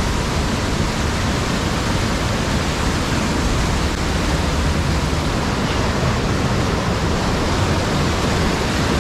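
Waterfall and fast-flowing stream cascading over rocks: a steady, loud rush of falling water with no let-up.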